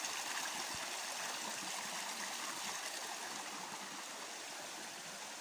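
Small spring-fed cascade running steadily, a constant rushing hiss of falling water, with one soft low thump about a second in.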